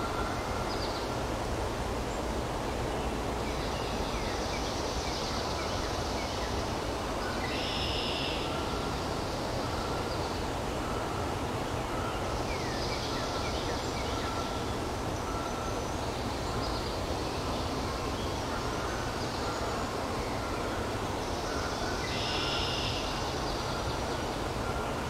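Woodland ambience: a steady rushing background noise, with small birds singing short high phrases that recur every four or five seconds, and a few quick chirps in between.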